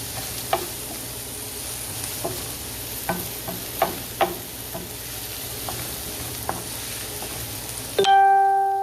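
Vegetables sizzling in oil in a non-stick skillet while being stirred, with the utensil clicking against the pan every so often. About eight seconds in, the sizzling cuts out and a loud phone notification chime rings out.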